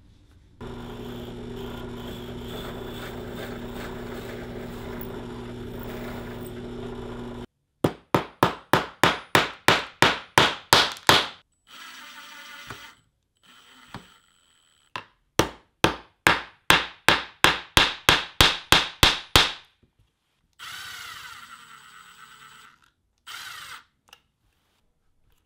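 A corded Bosch electric drill's motor runs steadily for about seven seconds and cuts off abruptly. Then a screw is driven into wood with a hand screwdriver: two runs of quick, regular strokes, about four a second, each lasting a few seconds, and a few shorter scrapes near the end.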